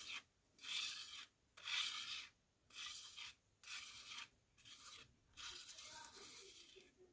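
A small square pad rubbed back and forth over a sheet of paper in about six short scraping strokes, picking up loose gold gilding flakes.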